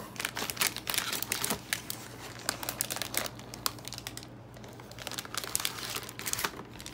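Metallized anti-static bag crinkling as it is handled and lifted out of its box with a motherboard inside: irregular bursts of crisp crackles, thinning out briefly just past the middle. A steady low hum underneath.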